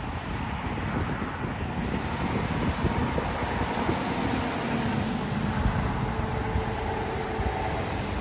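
Wind buffeting the microphone over a steady vehicle rumble, with a faint engine tone in the middle.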